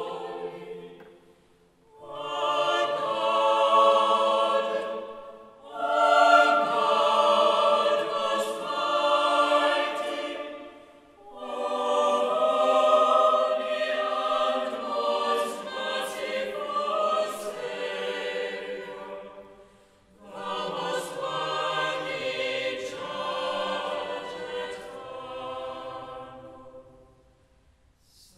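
A choir singing in long, slow phrases, with short breaks between them.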